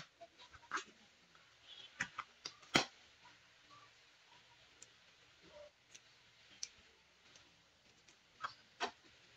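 Scattered light clicks and taps as hands handle napa cabbage leaves and spring onions on a plastic cutting board, the loudest just under three seconds in.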